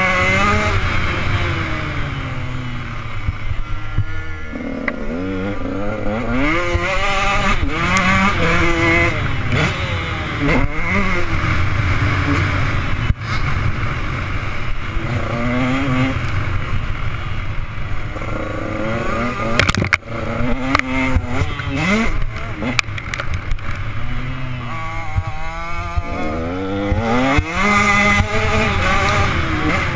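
Motocross bike engine heard from the rider's helmet camera, its pitch climbing under throttle and dropping back every few seconds as the rider accelerates, shifts and brakes around a dirt track.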